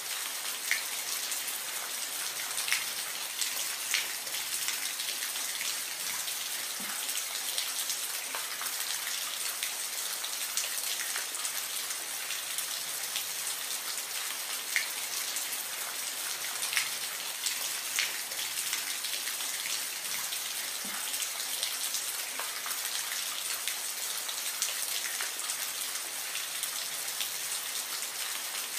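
Steady, gentle rain hissing, with single drops ticking sharply here and there every second or two.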